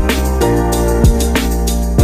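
Background electronic music: sustained chords over a heavy beat of deep kick drums that drop in pitch.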